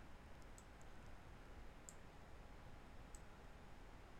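Near silence with a handful of faint, sharp computer mouse clicks spread across a few seconds.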